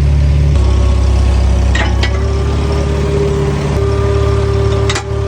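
Farm vehicle's engine idling with a steady low drone that shifts slightly in pitch about half a second in. Two sharp metal clinks, about two and five seconds in, from a wagon hitch pin being worked.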